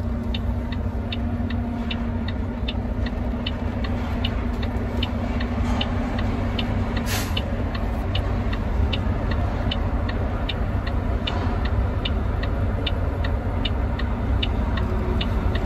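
Heard from inside a Volvo semi-truck's cab: the diesel engine running with a low, steady rumble while the truck is manoeuvred, with a fast, regular ticking, about two and a half ticks a second. A short hiss of air comes about halfway through.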